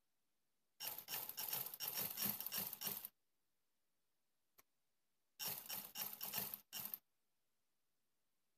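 Black sewing machine stitching fast through a trouser waistband: a rapid clatter from the needle and mechanism in two runs, about two seconds and then about a second and a half, with a single click between them.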